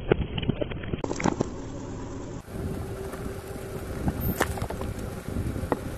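Car tyre rolling slowly over plastic bottles on gravelly asphalt: plastic crackling and popping and grit crunching under the tread, over the low rumble of the car. A single sharp crack about four and a half seconds in.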